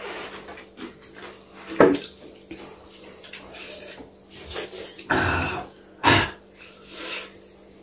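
Close-up eating sounds: hands mixing rice and food on plates, with chewing and mouth noises. A sharp click comes about two seconds in, and a few short noisy bursts near the end.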